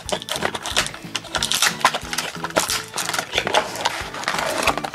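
Pocket knife cutting and scraping at a toy's clear plastic packaging and cardboard box, with many irregular crackles and scrapes, over background music.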